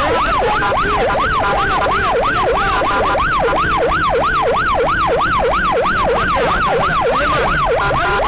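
Siren in a fast yelp, its pitch sweeping up and down about three times a second without a break.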